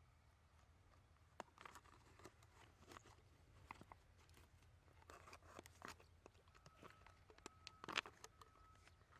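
Faint clicks and crinkles of plastic being handled as a plastic cup is worked into the centre hole of a plastic basket, with one sharper click about eight seconds in. A faint steady tone comes and goes in the second half.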